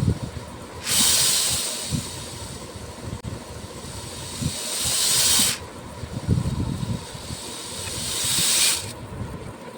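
Small beads pouring in streams, a rushing hiss-like rattle. There are three pours: the first starts suddenly about a second in, and the next two swell and then stop sharply. Lighter clattering of beads runs between them.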